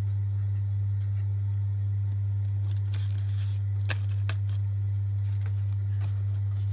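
Paper banknotes and a paper envelope rustling as they are handled, with a sharp click about four seconds in. Under them runs a steady low hum, which is the loudest sound throughout.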